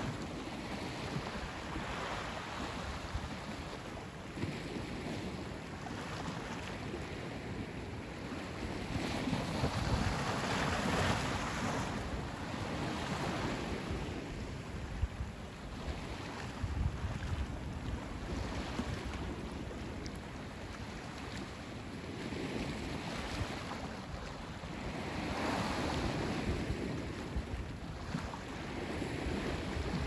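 Small waves washing onto a sandy beach, the wash swelling and fading, louder about a third of the way in and again near the end, with some wind rumble on the microphone.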